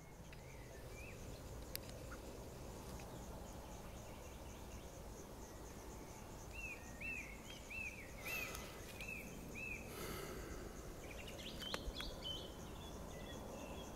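Quiet outdoor ambience: a songbird sings a run of about eight repeated arched whistled notes, about two a second, then a few higher notes, over faint steady insect chirping. A single light click comes near two seconds in.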